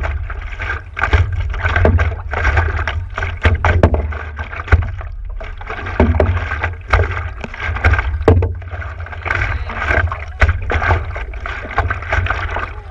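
Sea water sloshing and slapping against the nose of a stand-up paddleboard as it is paddled, in irregular splashes over a steady low rumble.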